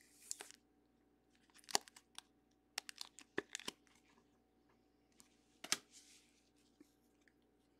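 Trading cards being handled and slid into plastic sleeves and rigid toploaders: faint crinkly plastic rustles and light clicks in short, scattered bursts.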